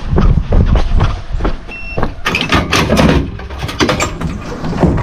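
A truck driving on a rough dirt road: steady low engine and road rumble with irregular knocks and rattles from the body, and a short high beep about two seconds in.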